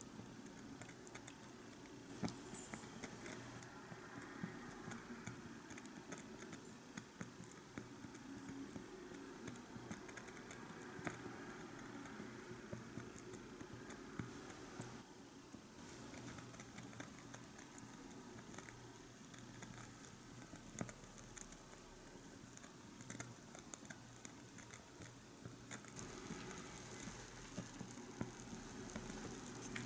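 Faint bubbling and crackling of broth simmering in a tiny cast-iron pot over a small flame, with scattered light clicks of wooden chopsticks against the pot.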